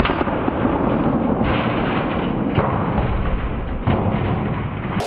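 Shotgun blast on a metal gas can, played back in slow motion: the shot is drawn out into a long, dull, low rumble that holds at an even level and cuts off suddenly.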